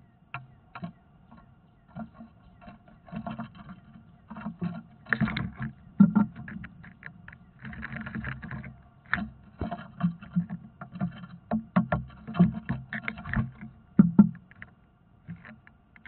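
Irregular knocking, scraping and thumping on the wooden nest box, heard from inside the hollow box: birds scuffling against it. A faint steady electronic hum runs underneath.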